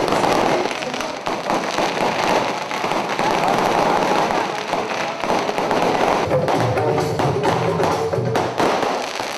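Firecrackers crackling in a dense stream of rapid pops. Music with steady held notes comes in over them about six seconds in.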